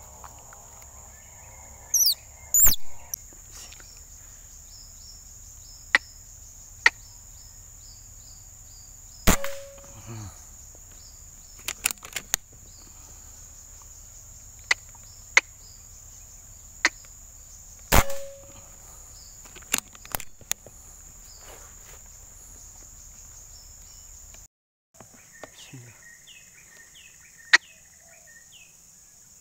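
PCP air rifle shots: two sharp cracks about nine seconds apart, each with a brief ring after it, among lighter clicks. A steady high-pitched drone runs underneath, and there are short chirps near the end.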